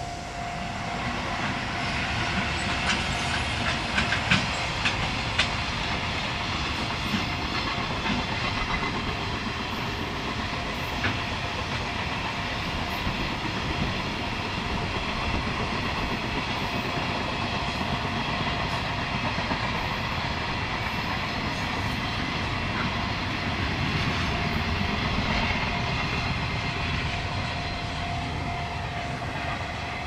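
Container freight train behind an EF210 electric locomotive passing at speed: a steady rumble of wheels on rail, with a run of sharp clacks about four seconds in. Strong wind on the microphone.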